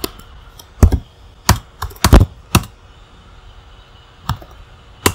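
Keystrokes on a MacBook Pro laptop keyboard while a terminal command is typed: about eight sharp, separate key clicks at an irregular pace, with a pause of over a second before the last two.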